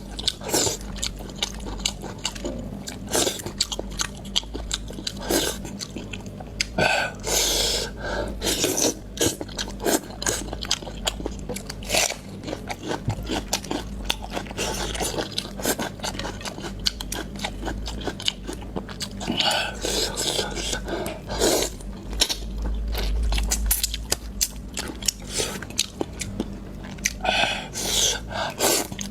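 Close-miked chewing and biting of chewy fish maw: a dense run of mouth clicks and smacks, over a steady low hum.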